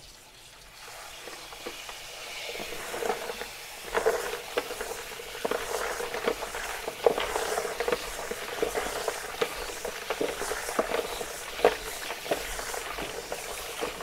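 Kitchen tap running into a plastic basin of salted zucchini slices, growing louder over the first couple of seconds, while hands stir and turn the slices in the water; from about four seconds in, many small splashes and knocks from the slices and leftover ice.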